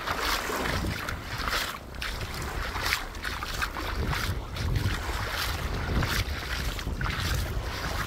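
Wind buffeting the microphone with a low, fluctuating rumble, over the rushing wash of sea surf.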